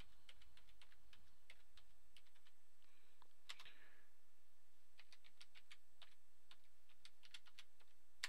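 Typing on a computer keyboard: scattered key clicks, then a quicker run of keystrokes in the second half.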